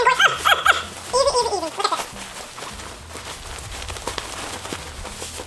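A woman's brief laughter, then soft fabric rustling and handling as a feather-down pillow insert is stuffed into a cotton pillow cover.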